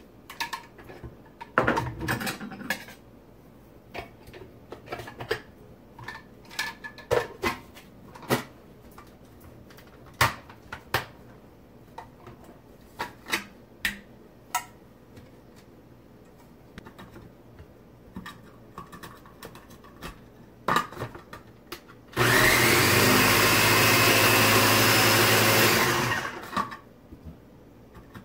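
Small electric food processor: plastic clicks and knocks as its lid and feed chute are fitted, then about 22 seconds in the motor runs steadily for about four seconds, grating cauliflower, and stops.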